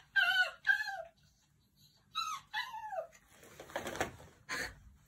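An animal's four short high-pitched cries, each sliding down in pitch, in two pairs about two seconds apart, followed by scraping and rustling.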